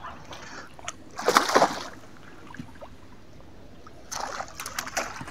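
A hooked carp thrashing at the water's surface, splashing in two bursts: one about a second in, and another from about four seconds in.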